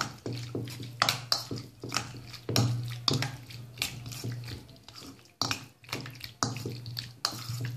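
A metal spoon stirring cubed raw chicken through a thick, wet marinade in a stainless-steel bowl: quick, irregular wet squelches and spoon scrapes against the steel, a few strokes a second, over a steady low hum.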